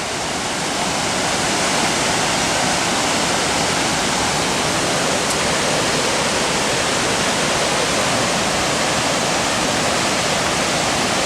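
Waterfall's rushing water: a loud, steady, even rush with no breaks.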